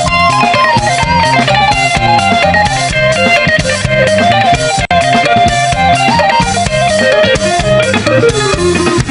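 Music with a plucked electric guitar melody over a steady bass line.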